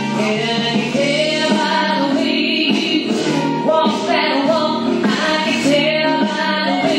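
A recorded pop song with singing, played over speakers as line-dance music.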